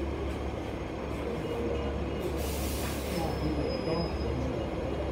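Hong Kong double-decker tram standing at a stop, its steady low hum running throughout. About two and a half seconds in comes a short hiss, then a brief thin high tone.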